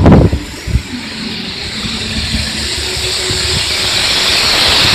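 Wormald fire suppression system discharging through its spray nozzles into a grader's engine bay: a steady hiss of spray that grows louder. A loud knock or rumble right at the start.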